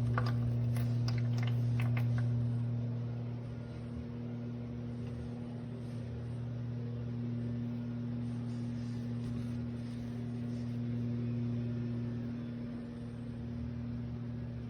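Battery-powered toy Miele washing machine (Theo Klein 6941) running with a steady electric hum, with a few sharp clicks in the first two seconds.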